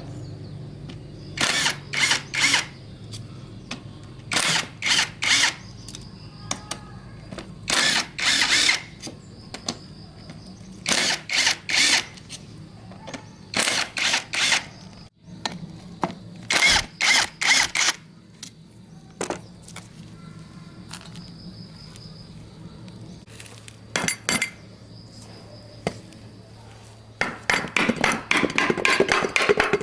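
A handheld power tool run in short bursts, two to four quick pulls at a time, with pauses between groups, over a low steady hum. Near the end it runs almost continuously.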